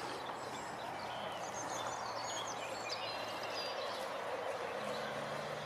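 Steady outdoor background noise with small birds chirping high and faint through the middle, and a faint low hum that comes in near the end.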